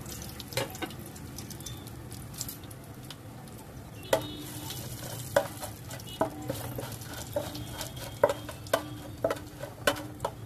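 Whole spices sizzling lightly in hot oil in a metal pot. From about four seconds in, a slotted metal spoon stirs them, clinking and scraping against the pot every second or so.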